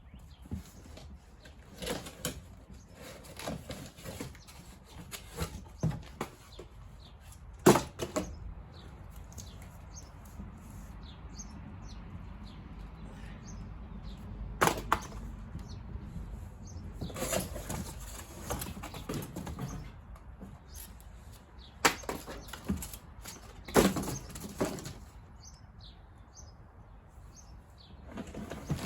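Packaging being handled while a fire table is unboxed: cardboard and plastic rustling and flapping, with irregular sharp knocks as parts are lifted out and set down.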